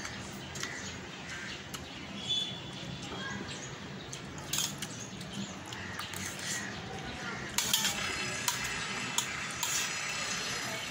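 Steel spoon clinking and scraping against a metal plate while rice is scooped and eaten, with scattered sharp clicks. A steady hiss comes up in the background about eight seconds in.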